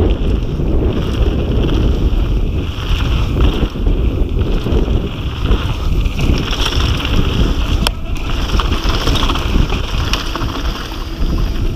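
Wind buffeting the microphone of a fast-descending downhill mountain bike, mixed with the rumble of its tyres on a dirt trail, with a couple of sharp knocks from the bike near the end.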